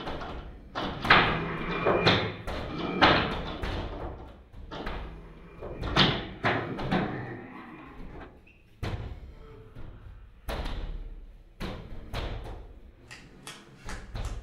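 A door being banged on over and over, with uneven heavy knocks and thuds about once a second, some louder than others.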